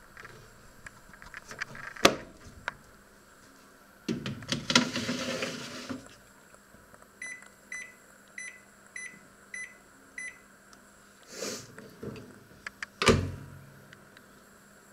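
Panasonic microwave oven's control panel beeping six times, about two beeps a second, as its buttons are pressed to set the time. Before that come a sharp click and a short clatter, and near the end a loud thump.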